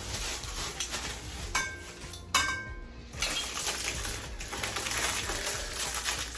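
Metal clothing rack parts clinking and knocking against each other while being assembled, with scraping and rattling throughout. Two sharp metallic clinks ring on briefly about one and a half and two and a half seconds in.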